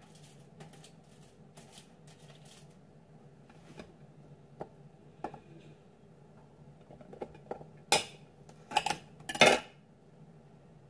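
A kitchen knife and ceramic plate clinking as asparagus spears are picked off the plate: a few light taps, then several louder sharp clinks close together near the end, over soft handling noise.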